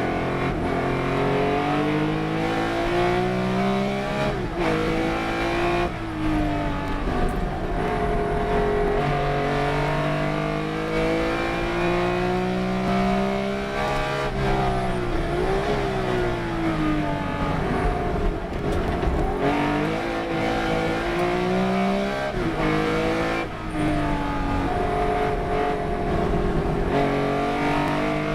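Race car engine run hard through the gears: the pitch climbs in steps as it shifts up, then falls sharply three times as it brakes and shifts down for corners.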